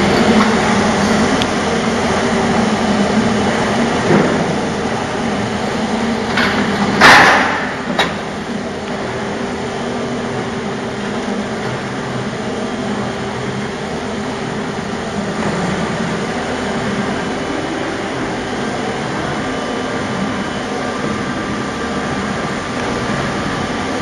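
Spindle veneer peeling lathe running with a steady machine noise. A loud burst of noise comes about seven seconds in, with sharp knocks shortly before and after it.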